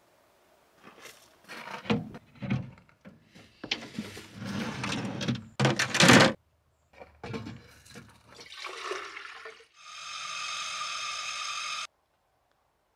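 Clatter and knocks of a slide-out camp stove and kitchen gear being handled, loudest about six seconds in. About ten seconds in comes a steady two-second stream of water poured from a stainless kettle into pour-over coffee filters, which cuts off abruptly.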